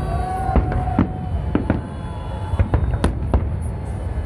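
Festive salute fireworks bursting overhead: about a dozen sharp bangs at irregular intervals over a continuous deep booming din from the barrage.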